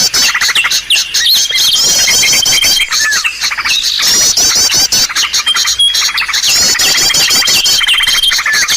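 Bird-lure recording of many small songbirds calling at once: fast high chirps and arched trill notes, with a long thin steady whistle that comes back every few seconds. It is a repeating, layered call track played to draw small birds in.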